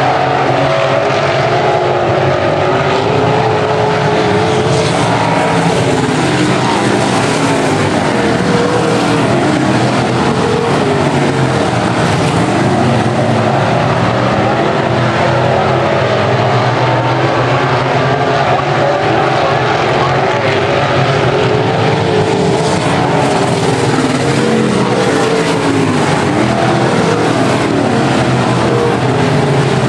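Several IMCA Modified dirt-track race cars' V8 engines running hard at once, their pitch rising and falling as the cars power down the straights and lift for the turns.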